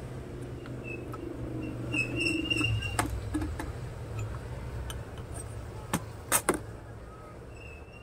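Metal parts of a hand-lever ID card cutter clicking and knocking as they are handled: a click about three seconds in and a quick run of three knocks around six seconds, the last two the loudest, over a steady low hum.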